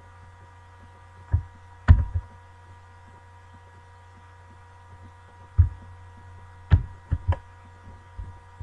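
Steady electrical hum from the recording setup, broken by several sudden low thumps and clicks at irregular intervals, the kind made by a mouse and desk being handled near the microphone.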